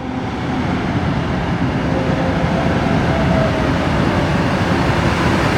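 Steady, dense rumbling of a heavy vehicle with a faint, slowly falling whine, starting and cutting off abruptly like an edited-in sound effect.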